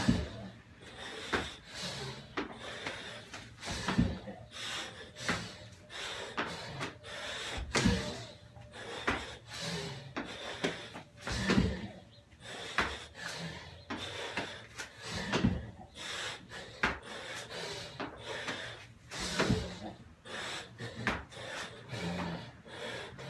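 A person doing burpees: a heavy thud about every four seconds as the body drops to the gym floor and lands from the jump, with hard, fast breathing between the thuds.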